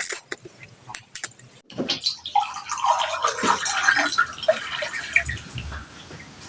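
Close-up eating sounds: a few sharp clicks in the first two seconds, then several seconds of wet mouth noises of someone eating noodles.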